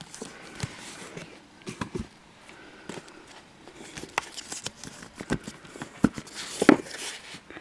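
Fingers brushing and tapping along the spines of paperback manga volumes on a shelf: irregular soft rustles and small knocks, the loudest knock a little before the end.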